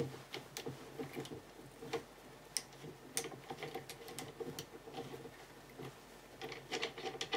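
Faint, irregular metallic clicks and ticks as the gas cylinder plug of an M1 Garand is unscrewed with the cleaning tool attached to a chamber brush, the tool's tip catching and shifting in the plug.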